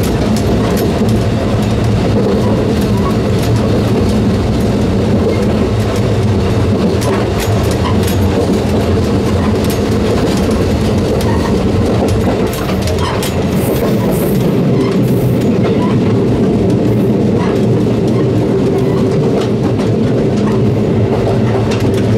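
A WT3000 diesel railcar running, heard from the gangway between two cars: a steady engine and running drone, with scattered clicks and knocks from the steel gangway plates shifting against each other and from the rail joints.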